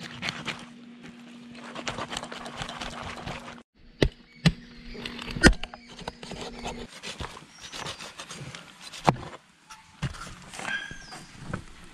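Knife cutting through the head of a large fish: cutting and scraping through flesh and bone, with a few sharp chops into the board. Short high pitched calls from an animal come near the end.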